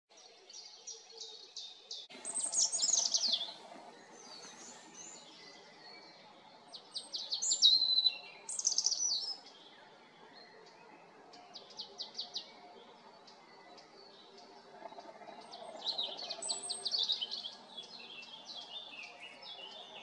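European robin singing: several high phrases of fast repeated notes and descending trills, with short pauses between them.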